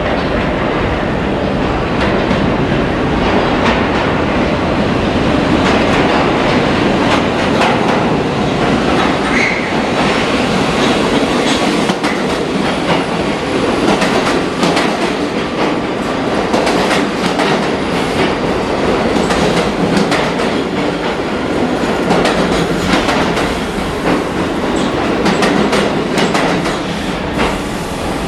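New York City subway train running along the track through an underground station, its wheels clacking over rail joints, with a steady loud rumble.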